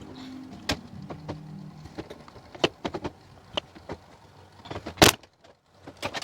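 Irregular sharp clicks and knocks, with one loud click about five seconds in.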